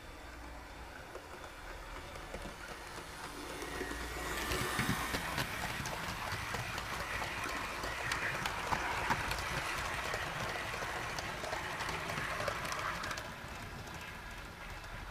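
HO scale (1:87) model train of fourteen cars rolling past close by, its wheels clicking over the track. The rolling noise rises as the train approaches, stays loud while the cars pass, and falls away near the end.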